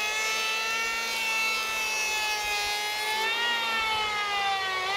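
Electric hand planer running while planing a heavy timber block: a steady motor whine whose pitch sags as the blades cut, jumps back up about three seconds in, then sags again near the end.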